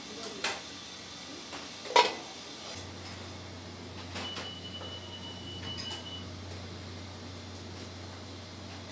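Commercial kitchen clatter over a steady hiss: a few knocks and clicks of pots, lids and containers, the loudest a sharp knock about two seconds in. A low hum comes in near three seconds, and a faint high steady tone sounds for about two seconds midway.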